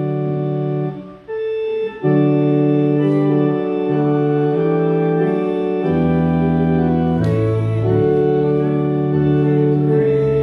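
Organ playing slow music in sustained chords that change every second or two, with a short break between phrases about a second in.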